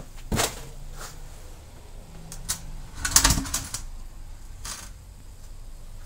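A few scattered clicks and light knocks at irregular intervals, the loudest cluster about three seconds in, with no drumming yet.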